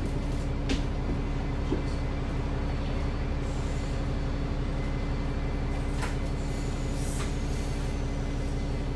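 Alexander Dennis Enviro400MMC double-decker bus heard from inside the passenger saloon: a steady engine and drivetrain hum with a constant low tone, and a few light clicks and rattles about a second in and again near six and seven seconds.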